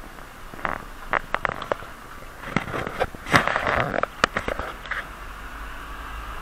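Tyres crunching and crackling over loose gravel and dirt, an irregular run of sharp clicks and crunches that is densest in the middle, then giving way to a steadier rolling and wind noise near the end as the tyres reach smooth pavement.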